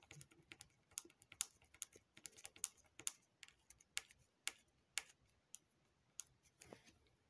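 Light, irregular clicks and taps, about two or three a second, as a white plastic pick prods and presses a small lump on a hard tabletop.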